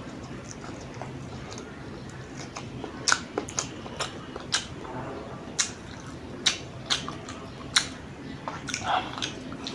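Close-up eating sounds of instant noodles: chewing and slurping, with a run of sharp, wet mouth smacks and clicks from about three seconds in.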